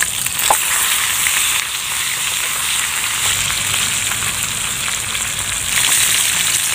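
Tilapia frying in hot cooking oil in a pan, sizzling with a steady, bright hiss.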